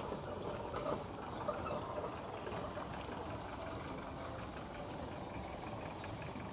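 Distant road traffic: a steady hum of vehicles with no single event standing out.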